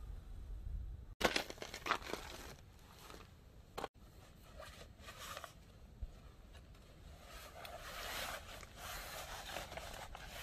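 Fabric rustling and crinkling as a flag is handled and rolled up, with a few sharp knocks of gear being handled. The sound breaks off abruptly twice early on, between clips.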